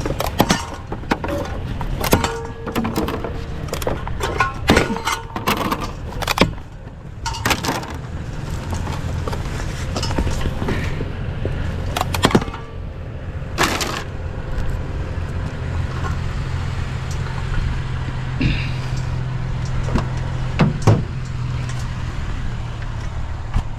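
Scrap pieces being handled: repeated clanks and knocks of metal and plastic, thick in the first half and sparser later, over a truck engine idling with a steady low hum.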